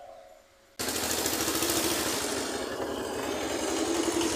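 A small engine running with a rapid, even pulse. It starts abruptly about a second in, after near silence.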